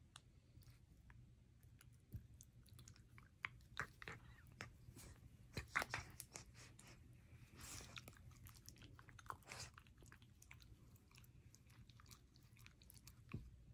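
Two small dogs play-fighting, mouthing and nipping at each other: faint scattered snaps of teeth and rustling of fur on a plush bed, busiest in the middle.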